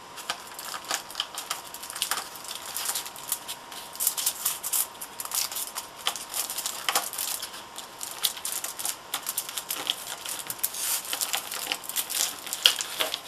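Aluminium foil crinkling as it is rolled up by hand: an irregular run of sharp crackles.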